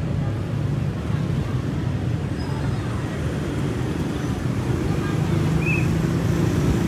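A motor vehicle engine running with a steady low hum, a little louder near the end.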